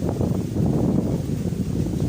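Strong typhoon wind gusting and buffeting the microphone in a dense low rumble, easing slightly in the middle.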